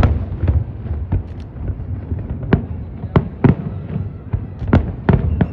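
Aerial fireworks bursting: an irregular string of about nine sharp bangs over a continuous low rumble of further explosions.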